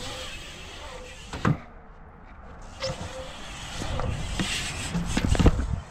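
BMX bike rolling on a concrete skatepark bowl, its tyres giving a steady rolling noise. Sharp knocks as the wheels hit the concrete: one about a second and a half in, and a cluster of louder ones near the end.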